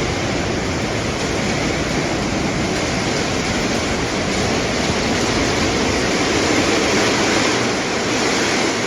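Hailstorm: hail pelting down in strong wind, a loud, steady rush of dense noise that begins abruptly.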